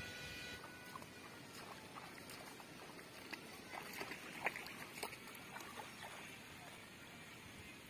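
Faint, scattered splashes and rustles of a person wading barefoot through wet waterweed and reaching into shallow canal water to set a plastic bottle trap.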